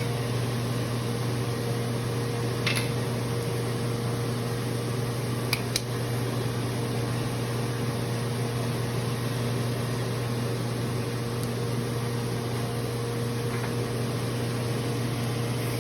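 Steady low hum of a fan motor under an even hiss, with a few light clicks about three and six seconds in.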